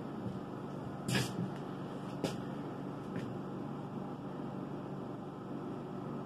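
Steady low background hum with a few short soft noises; the loudest comes about a second in.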